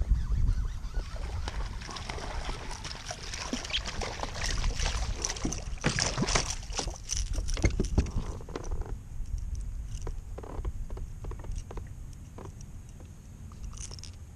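Wind rumbling on the microphone, with a spell of splashing and sharp clattering clicks in the middle as a hooked striped bass thrashes while it is lifted from the water beside a plastic kayak; fewer, scattered clicks follow.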